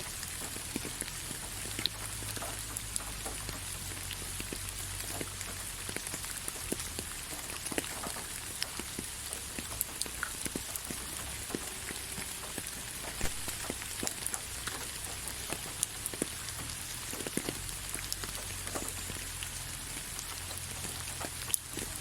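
Gentle, steady rain: an even hiss with many individual drops ticking irregularly on a surface.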